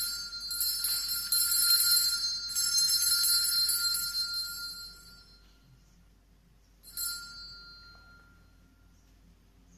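Altar bells rung several times over the first five seconds, then once more about seven seconds in, each ring fading out. They mark the elevation of the chalice at the consecration.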